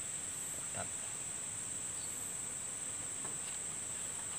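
Steady high-pitched drone of insects in the background, with a couple of faint light taps.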